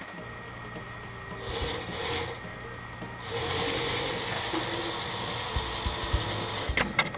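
Small electric motor whirring steadily, louder from about three seconds in, with lighter rattling of metal construction-set parts before it.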